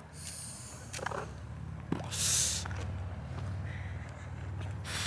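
A person drawing on a vape cartridge and blowing out the smoke: a short hiss near the start, then a louder breathy exhale about two seconds in, over a low steady rumble.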